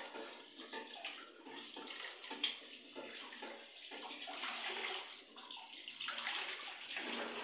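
Water splashing and swishing unevenly as a bunch of fresh coriander is rinsed by hand.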